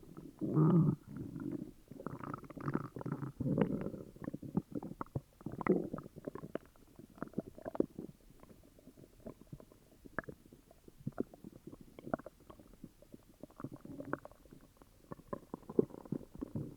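Human stomach gurgling and growling: irregular runs of gurgles and quick pops, busiest in the first six seconds and then sparser. The uploader calls it an upset stomach.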